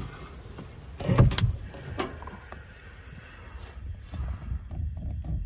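Thumps and knocks of someone moving about and handling things inside a small wooden cabin: one heavy thump about a second in, then a run of light knocks, about four a second, near the end.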